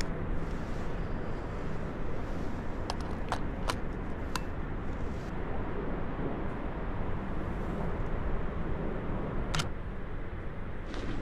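Steady rushing roar of a waterfall, Upper Yosemite Fall, with a few sharp clicks of a camera lens being handled and fitted.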